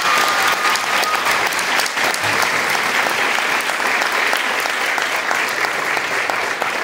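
A theatre audience applauding loudly and steadily.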